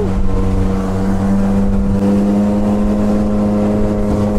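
Jet ski engine running at a steady high speed, a constant drone that holds its pitch, with the rush of water and wind under it.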